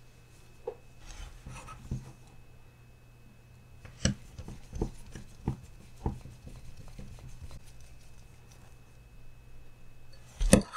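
Light plastic clicks and knocks from handling a Traxxas TRX-4M crawler chassis and turning a small screw with a hex driver, scattered irregularly with a sharper knock near the end, over a steady low hum.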